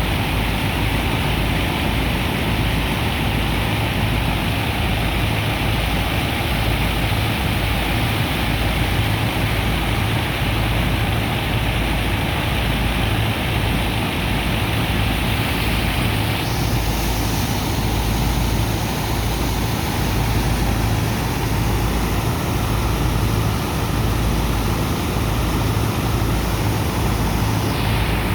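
A sand dredger's engine and pump running steadily: a low hum under a constant rush of noise. A little past halfway a brighter hiss joins in and holds until near the end.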